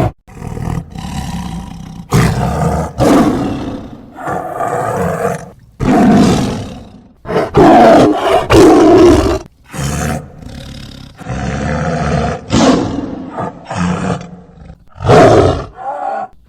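A tiger roaring over and over: about a dozen loud roars of different lengths, separated by short gaps.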